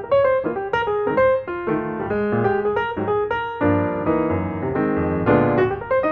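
Background piano music: a run of single notes, several a second, over sustained chords.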